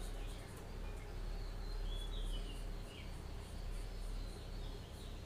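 Faint, scattered bird chirps, short calls sliding in pitch, a few each second, over a steady low hum and room noise.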